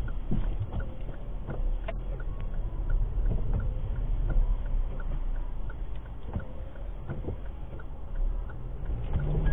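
Car cabin noise picked up by a dashcam: the steady low rumble of the engine and road while driving, with a light, regular ticking at a little over two ticks a second.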